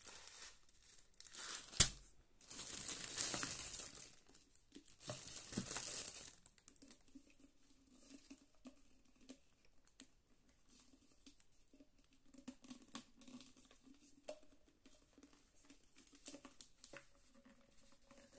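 A thin clear plastic bag crinkling as it is handled and pulled open, in three loud rustling bursts over the first six seconds. After that, quieter handling with a few small clicks of hard plastic figure pieces, over a faint low hum.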